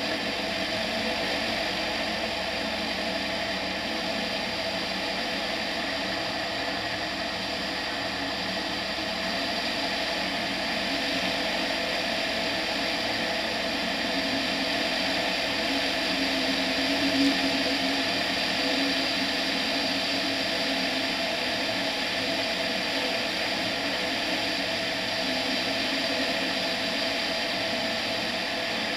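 Tetras ultralight aircraft's engine and propeller running steadily in flight, with wind rush over an outside-mounted camera, and a brief swell about 17 seconds in.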